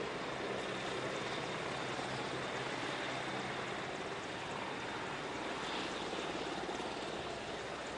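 The turbines and rotor of a three-engine MCH-101 (AgustaWestland AW101) helicopter, running steadily as a close, even rushing noise with a low hum underneath.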